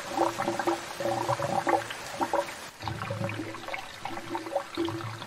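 Water gurgling and pouring through pipes in uneven surges.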